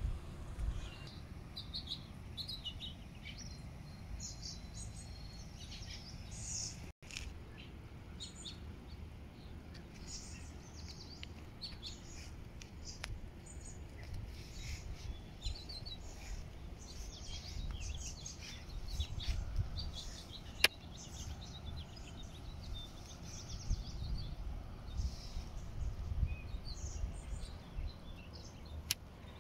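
Songbirds chirping and calling on and off, many short high notes, over a steady low rumble of outdoor noise. A single sharp click about two-thirds of the way through.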